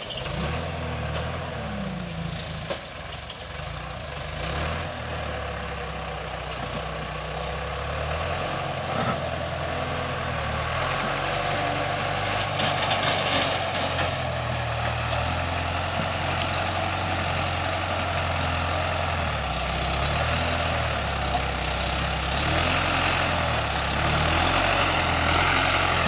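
Bulldozer's diesel engine working as it scrapes and pushes soil. The engine note rises and falls with the load, over a steady rattling noise.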